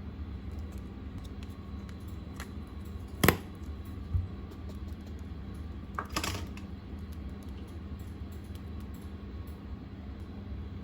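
Clear slime being handled by hand: a few scattered sharp clicks and pops, the loudest about three seconds in, over a steady low hum.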